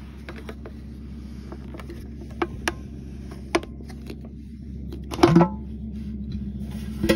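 Plastic clicks and knocks from a Vicks humidifier's housing being handled and pried open by hand, with a louder clatter about five seconds in, over a steady low hum.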